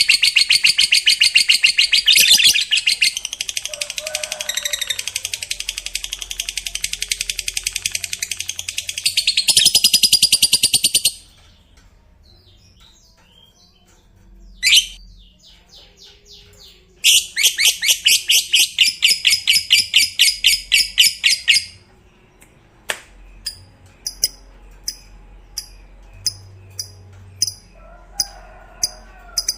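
Lovebird's long 'ngekek' chatter: a fast, unbroken run of sharp high notes lasting about eleven seconds. After a pause comes a second run of about four seconds, then scattered single short chirps.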